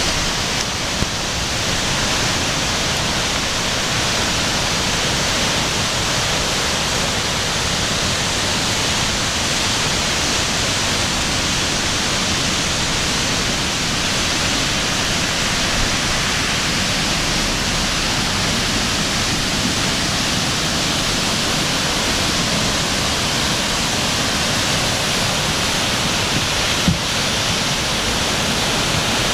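Freeman Brook in flood: swollen water rushing in a loud, steady, unbroken noise, with one short knock near the end.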